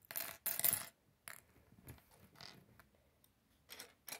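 A handful of small plastic Lego blaster pieces clattering down onto a table among loose Lego bricks: two short rattles in the first second, then a few light clicks as pieces are shifted.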